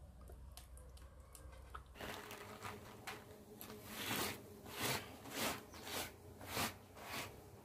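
Faint eating sounds from a rice and dry fish curry meal: soft, wet, regular noises about every half second, growing louder in the second half.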